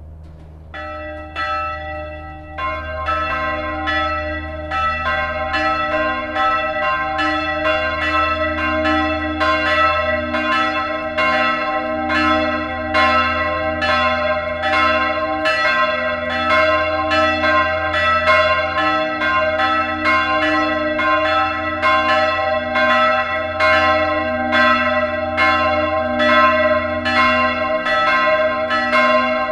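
Neskirkja's church bells start to ring: a first bell strikes under a second in, a second bell joins about two seconds later, and they settle into a steady peal of overlapping strokes, roughly two a second, each left ringing.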